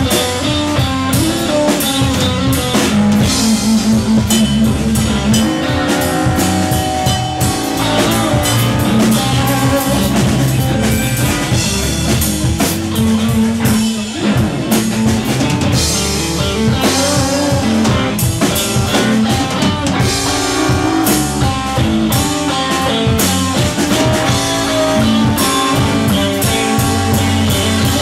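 Live blues band playing a slow blues: an electric guitar takes the lead over a drum kit and a second guitar.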